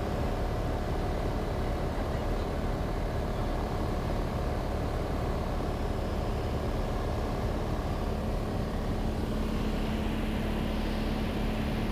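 Cessna 182's piston engine and propeller droning steadily in cruise flight, heard inside the cabin, with a low tone growing a little stronger about nine seconds in.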